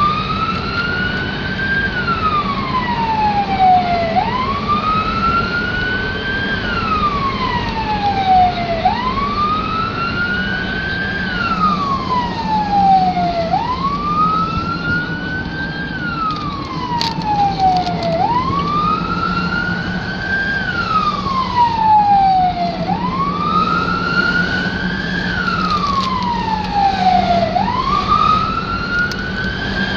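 Electronic emergency siren in slow wail, rising and falling about every four and a half seconds, the responding vehicle's own siren heard from inside its cab. A steady engine and road hum runs underneath.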